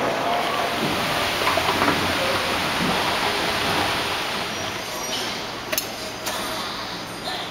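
Steady, even rushing background noise of an indoor public space. It drops to a lower level about five seconds in, and a few sharp clicks come near the end.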